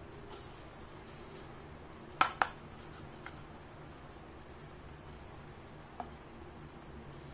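Hard plastic toy pieces clicking as they are handled: two sharp clicks close together about two seconds in, then a couple of fainter ones.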